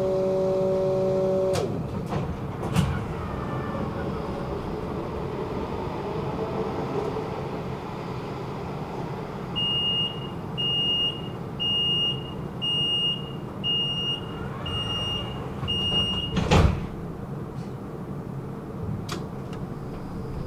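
Tram's electric drive whine dying away with a short falling glide as it halts. Then the door-closing warning beeps seven times at an even pace, just under one beep a second, and the sliding doors shut with a loud thump.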